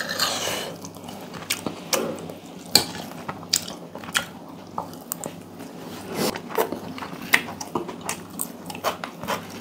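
A person eating: a knife and fork clicking and scraping on a plate as an omelette wrap is cut, then chewing, picked up close by a clip-on microphone. Many small sharp clicks run through it.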